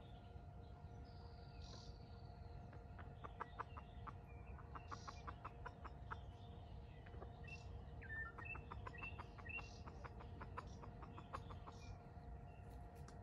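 Wild junglefowl chickens clucking faintly: two runs of quick, evenly spaced clucks, one a few seconds in and another past the middle.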